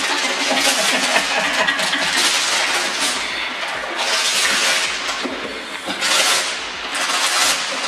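Gift wrapping paper being torn and crumpled off a box in several long rips.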